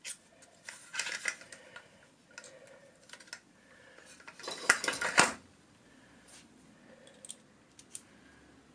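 Small steel screwdriver bits clicking and rattling in a plastic bit case as it is handled and a bit is picked out. Scattered light clicks, with a louder run of clatter about halfway through.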